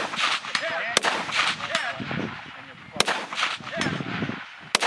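Three single gunshots, sharp and sudden, fired slowly at about two-second intervals.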